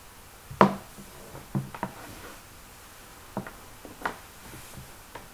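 Several short, scattered knocks and taps from things being handled, the loudest about half a second in, the rest lighter, over a faint steady hiss.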